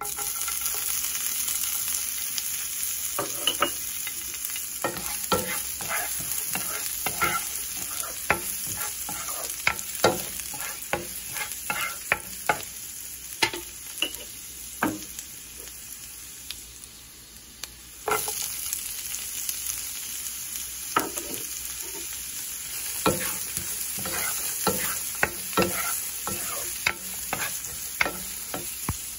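Chopped garlic frying in hot oil in a pan, sizzling, with frequent sharp clicks and knocks as it is stirred. The sizzle starts the instant the garlic goes in, and it jumps up again about two-thirds of the way through as diced onion is added.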